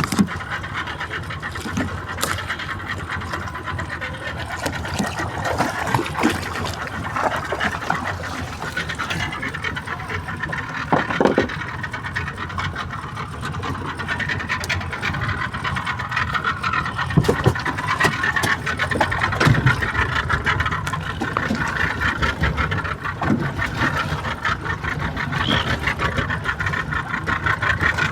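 A boat's engine running steadily, with scattered knocks and clicks on top.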